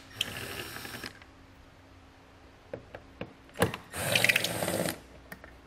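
Cordless power tool spinning a T30 Torx socket to back out a taillight mounting bolt. It runs in two short bursts of about a second each, one at the start and one about four seconds in, with a few light clicks between as the socket is moved.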